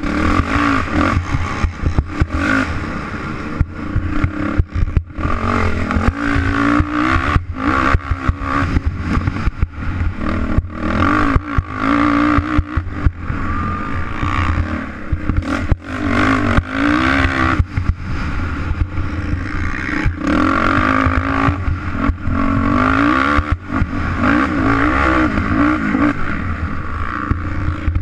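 Dirt bike engine revving up and down, rising and falling in pitch again and again, as it is ridden hard over a rough dirt race course, heard from a camera on the bike.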